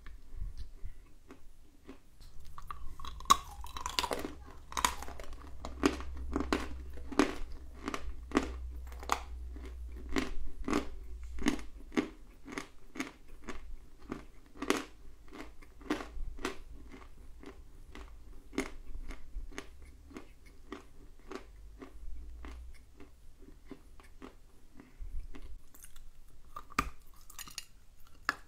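A person chewing a mouthful of dry edible clay, crunching about twice a second and gradually thinning out, then a fresh bite into a new chunk near the end.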